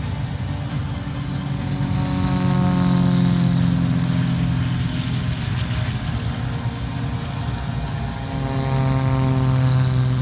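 Large radio-controlled propeller aerobatic aircraft running in flight and passing by. The engine pitch falls as they go past, and they swell louder about three seconds in and again near the end.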